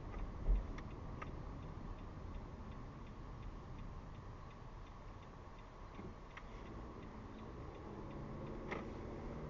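A car's turn-signal indicator ticking at an even rate inside the cabin, over steady low road noise, with a brief low thump about half a second in.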